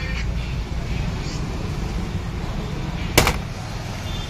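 Steady low rumble of street traffic, with one sharp knock a little over three seconds in.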